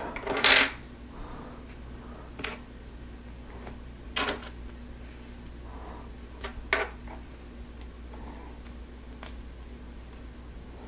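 Hard plastic Lego Technic parts clicking and tapping as they are handled and pushed together: about five sharp clicks a couple of seconds apart, the loudest about half a second in, over a faint steady hum.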